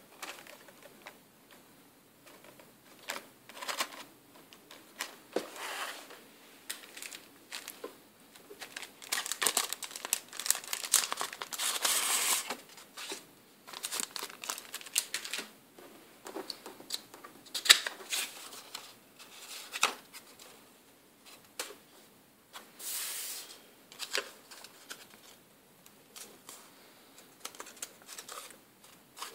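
Paper and a plastic bag being handled: irregular rustling and crinkling, with a longer stretch of crinkling about ten seconds in, and scattered sharp taps and clicks as paper is picked up and folded.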